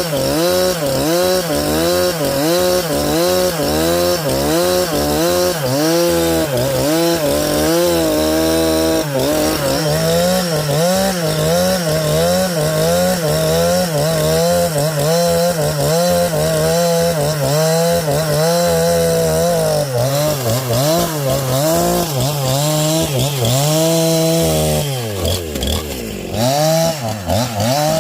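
Chainsaw running at full throttle under load, sawing a log into boards, its engine pitch wavering up and down in a steady rhythm a little under twice a second. Near the end the engine note drops sharply, then climbs back up.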